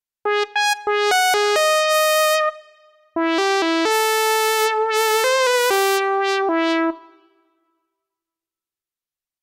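Cherry Audio Octave Cat software synthesizer, an emulation of the 1976 Octave CAT, playing its "Kitty Cat" lead preset. Two short melodic phrases of quick, bright notes, with the pitch wavering near the middle of the second phrase. The notes die away about seven seconds in.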